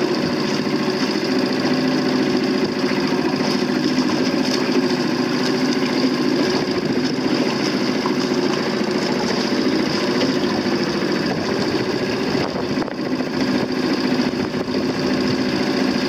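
Outboard motor running steadily at low speed, heard from aboard the boat towing the dinghy.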